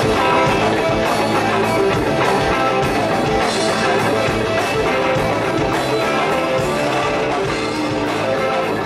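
Rock band playing live, with electric bass, guitar and a drum kit keeping a steady beat.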